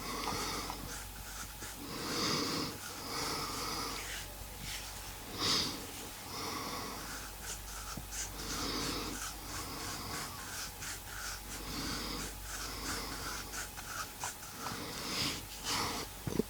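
A man snoring in his sleep, wheezy breaths coming irregularly every second or two, with small clicks between them.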